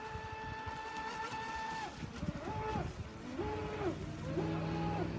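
Thunder Tiger Olympian brushless electric RC speedboat running on the water, its motor whining at a steady pitch. In the second half the whine drops and climbs back several times as the throttle is eased off and opened again.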